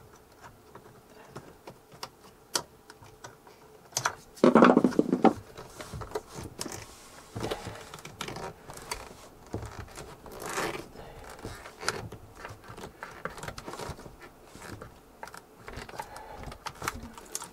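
Small clicks and taps of a screwdriver working a metal worm-gear hose clamp loose on a flexible water hose, with hands handling the hose and fitting. A brief louder scrape comes about four and a half seconds in.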